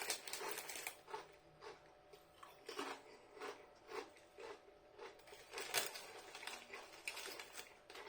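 A person chewing crinkle-cut salt and vinegar crisps: quiet, irregular crunches about twice a second, with one louder crunch about six seconds in.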